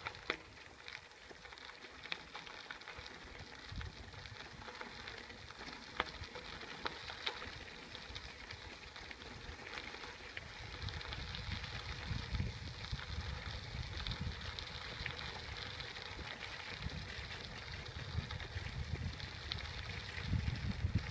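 Wind buffeting the microphone, building up from about halfway, over a steady crackling hiss with scattered small clicks.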